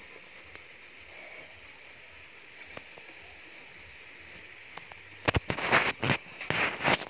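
Faint steady hiss, then about five seconds in roughly two seconds of loud, irregular rustling and knocking from the phone being handled and moved.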